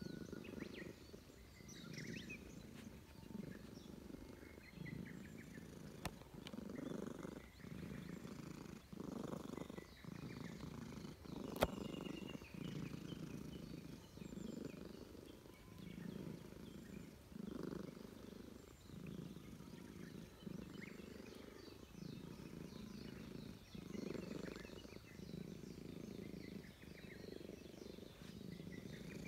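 Grey Russian Blue–type stray cat purring while being stroked, the low purr swelling and fading with each breath about once a second. A single sharp click sounds near the middle.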